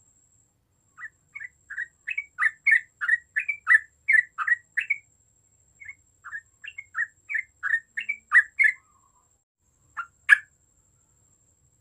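Yellow-vented bulbul (cucak trucuk) singing: two runs of short chirping notes at about three to four a second, with a brief pause between them, then a louder pair of notes near the end.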